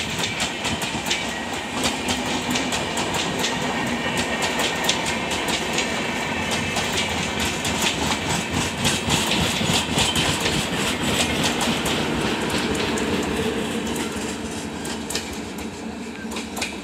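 Express train's passenger coaches running past at speed, the wheels clattering fast and steadily over the rail joints, fading over the last few seconds as the end of the train goes by.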